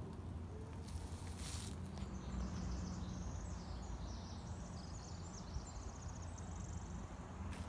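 A songbird sings one long, rapid song of varied high notes that ends in a fast trill, starting about two seconds in. Under it is a steady low rumble of wind or handling noise, with a brief rustle about a second and a half in.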